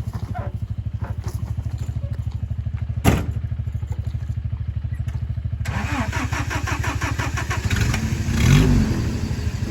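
Stuck Toyota pickup's engine running with a steady, even pulse, one sharp knock about three seconds in; from about six seconds in a rush of noise builds and near the end the engine revs up and down: a second attempt to drive the truck out of the mud.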